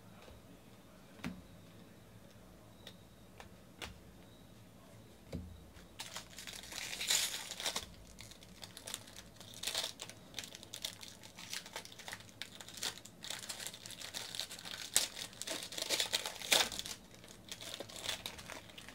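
A few soft clicks, then from about six seconds in the shiny foil wrapper of a baseball card pack crinkling and tearing as hands rip it open and crumple it.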